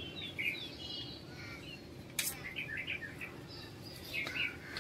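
Small birds chirping and calling in short, high notes throughout, with one short sharp noise about two seconds in.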